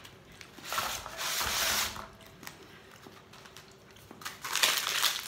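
Plastic wrapper of a pack of Ringo biscuits crinkling and rustling as it is opened and emptied, in two noisy bursts, about a second in and again near the end.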